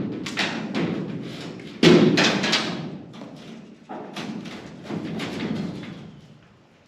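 A run of heavy thuds and knocks from an old ladder being handled and climbed. The loudest hits come at the very start and about two seconds in, with smaller knocks after four seconds.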